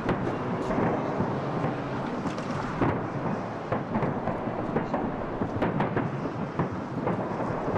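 Fireworks display: a dense run of aerial shell bursts, with many overlapping sharp bangs and crackles over a continuous rumble.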